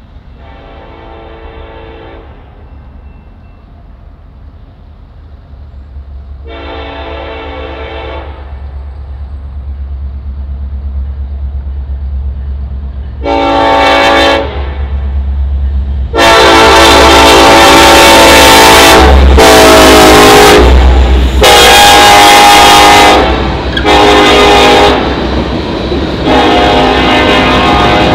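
A Norfolk Southern diesel freight locomotive's air horn blowing a series of chime blasts as the train approaches a grade crossing: two fainter blasts in the first few seconds, a short one about halfway, then several long loud blasts in the second half. Under the horn the rumble of the locomotive and the train's wheels swells steadily.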